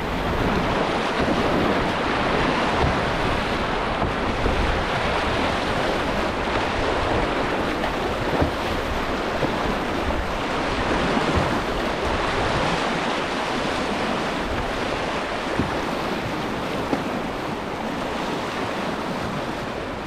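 Rushing, churning water of a small class I river rapid with wave trains, heard from a canoe running through it: a steady, loud roar of moving water.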